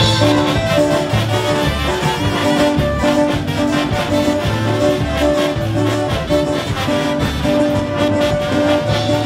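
A brass band with bass drum playing live: brass melody notes over a steady, repeating bass line, with the music starting loudly at the very beginning.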